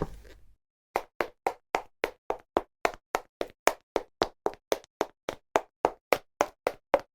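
Recorded sound effect of rapid, evenly spaced knocks, about three and a half a second, each a sharp hollow tap whose pitch shifts slightly from knock to knock, starting about a second in after the last of a few heavy thuds fades.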